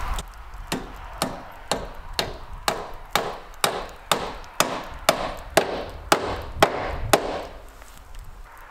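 Hand hammer blows fastening a trim piece at the foot of a metal-sided wall: about fifteen even strikes, two a second, each with a short ring, stopping about seven seconds in.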